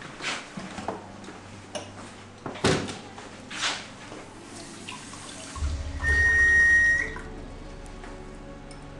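Horror-film soundtrack: a few short knocks and rustles, then a loud low rumbling swell with a steady high tone about six seconds in, settling into a quiet held drone.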